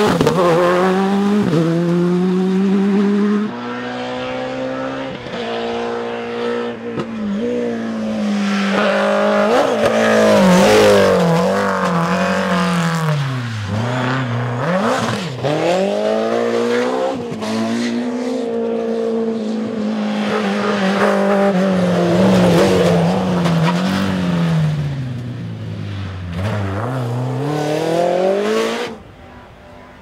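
Rally cars at speed, one after another, their engines revving up and dropping back again and again through quick gear changes. The sound is a Škoda Fabia R5 on a wet road near the start and a BMW M3 E30 later on.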